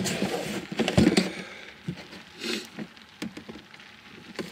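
Camp gear being handled and put away by hand: a scatter of light knocks, clicks and rustles, the loudest a knock about a second in.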